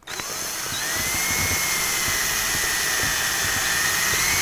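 Handheld power drill spinning up and drilling a small pilot hole through a classic Mini's steel body panel. It gives a steady high whine that climbs in pitch over the first second, then holds.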